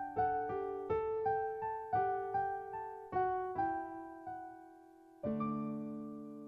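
Background piano music: a gentle melody of single notes, a short lull, then a final chord struck about five seconds in that rings on and slowly fades.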